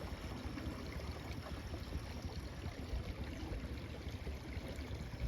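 Steady river ambience: moving water with a low rumble underneath.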